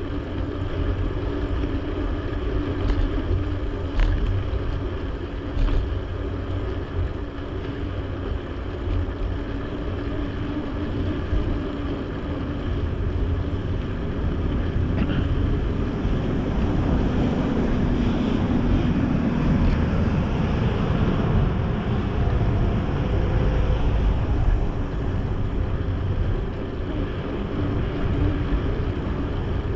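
Wind rumble on the action-camera microphone while riding a folding bicycle, with road traffic running alongside that gets louder around the middle.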